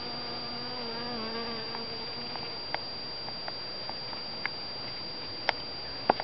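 A honeybee buzzing in flight close by: a steady wingbeat hum that dips a little in pitch about a second in and fades out after about two seconds. A few sharp clicks follow, the loudest near the end.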